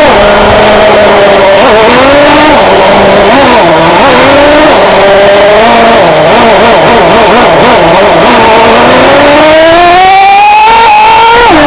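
Traxxas Jato 3.3 nitro RC car's small two-stroke glow engine, the TRX 3.3, revving up and down under throttle. Its pitch dips and climbs several times, then rises steadily for a few seconds and falls sharply near the end.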